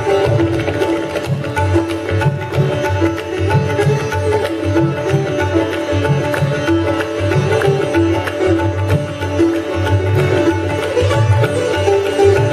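Sitar and tabla playing Indian classical music together: a plucked sitar melody over the tabla's rhythm, with repeated deep bass strokes from the tabla.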